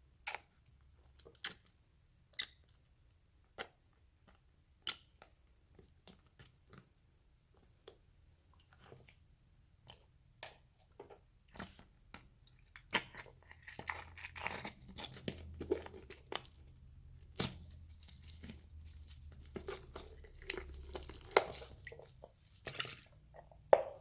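Slime and its add-ins being handled and mixed by hand. Scattered sharp clicks and crackles come first, then about halfway in a denser run of crunching and squishing sets in.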